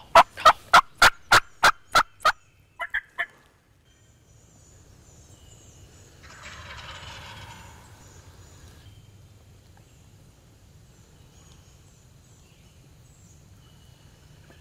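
Wild turkey calling: a fast run of about nine loud, evenly spaced notes, then three more just before three seconds in. After that it is quieter, with a low rumble, a fainter call around six to nine seconds in and faint high chirps.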